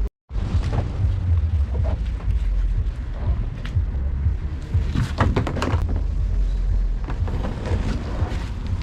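Wind buffeting the microphone, a loud, steady low rumble, with a cluster of sharp knocks about five seconds in.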